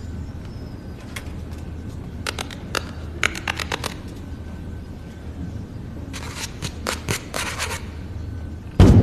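Sharp clicks and crackles in scattered bunches over a low steady hum, during a quiet break in the music.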